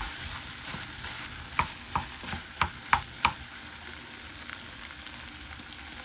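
Chicken and mushrooms in green curry paste sizzling in a small saucepan while being stirred, with about six sharp clicks of the utensil against the pan in the first half.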